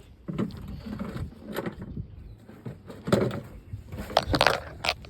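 Irregular scrapes and knocks of an object being handled and set down on a wooden deck. The loudest rasping scrapes come about three seconds in and again just past four seconds, followed by a short click.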